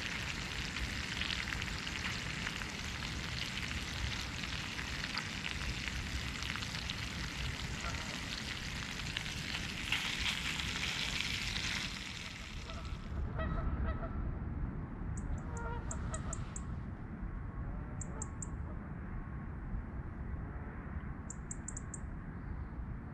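Bacon sizzling in a frying pan, a steady hiss that cuts off about halfway through. After the cut, waterfowl give a few short calls over a low outdoor rumble, and a small bird chirps high in quick bursts of three to five notes, four times.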